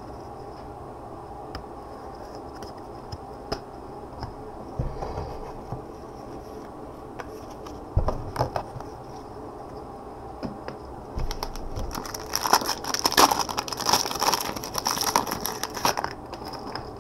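Gloved hands handling trading cards and their packaging on a mat: scattered light taps and a knock about eight seconds in, then about five seconds of crinkling and rustling near the end, over a steady low hum.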